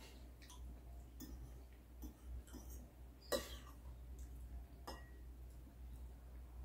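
Spoons and a fork clinking against ceramic bowls while eating: a handful of light, scattered clinks, the loudest about halfway through and one near the end ringing briefly.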